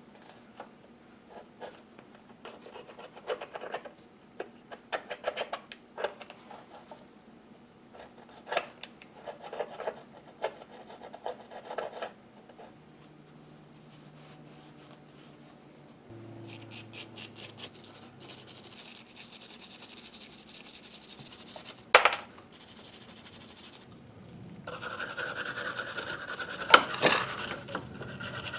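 Short, irregular scratching strokes of a small metal tool scraping caked grime off a brace drill's bearing race cap, then steady scrubbing of a hand wire brush on the brace's metal shaft near the end. A single sharp click falls in between.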